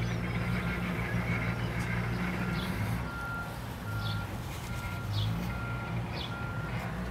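Vehicle backup alarm beeping steadily, a little faster than once a second, over a low, steady engine rumble.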